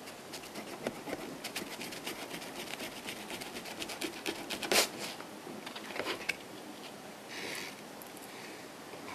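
Close-up chewing of a salami pizza slice: quick wet mouth clicks and crackles in rapid succession, with one louder click about five seconds in and a short breathy hiss near the end.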